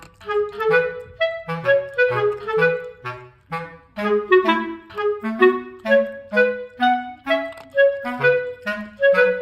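Background music: a bouncy woodwind melody of short notes over a bass line, in an even rhythm.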